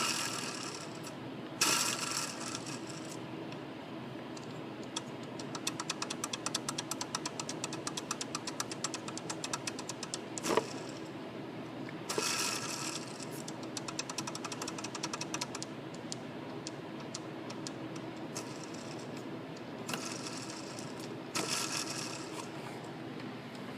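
Belt tensioner pulley on a Jeep Grand Cherokee WJ spun by hand with the belt off, its bad bearing rattling in a fast run of ticks for several seconds near the middle. A few single knocks come as the pulley is handled, over a steady mechanical hum.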